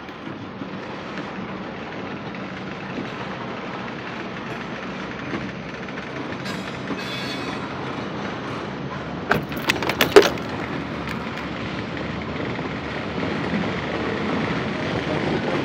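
CSX autorack freight cars rolling past on the rails, a steady rumble and rattle that grows louder near the end. A short run of sharp clanks comes about two-thirds of the way through.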